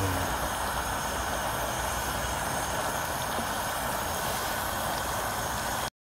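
Portable gas stove burner running under a tin of oil sardines: a steady rushing noise that cuts off suddenly near the end.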